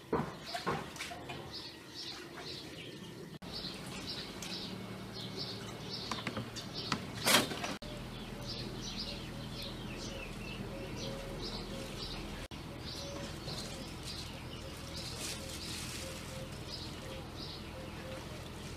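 Small birds chirping again and again in short high calls, with a single sharp click about seven seconds in.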